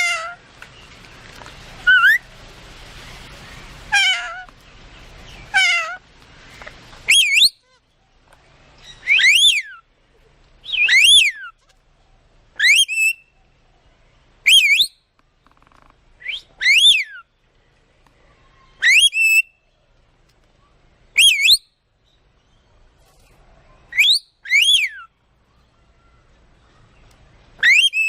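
Pet talking bird giving short whistled calls that glide down in pitch, repeated about every two seconds, some as quick double notes.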